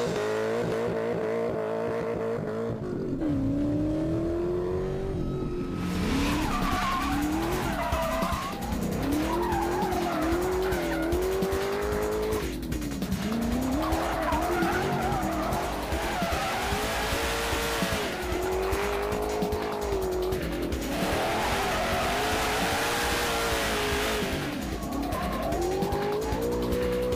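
Mosler MT900's V8 engine revving hard, its pitch climbing and dropping again and again as the driver works the gears, with the rear tyres squealing and skidding as the car slides in a drift.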